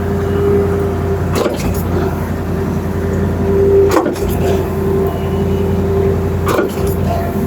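Concrete pump truck running steadily at working speed, with a sharp clunk three times, about every two and a half seconds, as the pump changes stroke.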